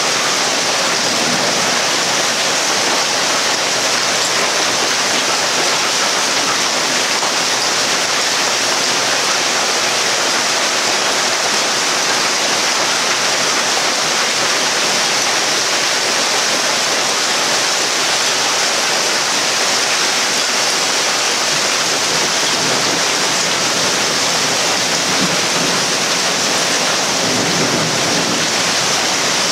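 Heavy hailstorm: hail and rain pelting down in a steady, dense, unbroken noise.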